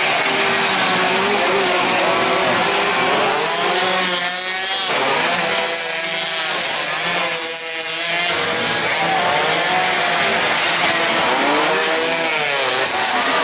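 Small racing motorcycles passing at speed one after another. Their engines rise in pitch under throttle and drop away as they go by and change gear, with several engines overlapping at once.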